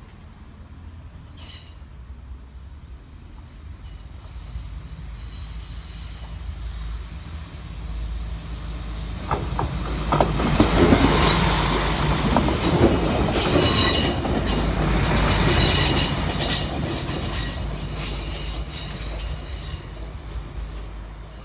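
A train passing with its wheels squealing against the rails: high squeal tones over a rumble, building to loudest about ten seconds in and fading as it goes by. The squeal persists although the track is greased.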